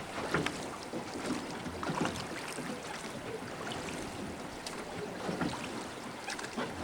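Steady rush of river water around a drifting boat, with scattered small clicks and splashes throughout.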